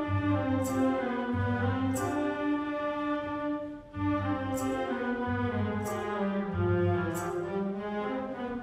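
Wind band playing a klezmer-style piece: a moving melody over a pulsing bass line, with occasional bright percussion strikes. There is a brief break a little before the middle.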